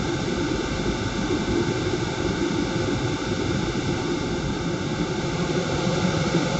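Wind tunnel fan running steadily: a constant rushing of air with a low hum and a few faint steady tones.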